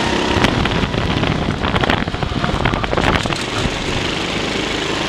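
Go-kart engine running at racing speed, heard from a camera mounted on the kart and largely drowned by wind buffeting on the microphone, with a few short knocks from the chassis.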